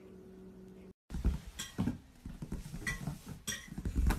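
A faint steady hum, then after a brief cut a series of irregular knocks, thuds and light clinks, like small hard objects being handled.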